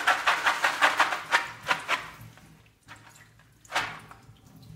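Soaked beans being shaken in a plastic colander over a steel sink: a quick rhythmic rattle of about five shakes a second for the first two seconds, then quieter, with one short swish about a second before the end.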